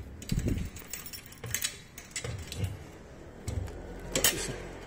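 A bunch of keys jangling and clicking against a bicycle's rear-wheel ring lock as it is locked, with a few short low handling knocks in between.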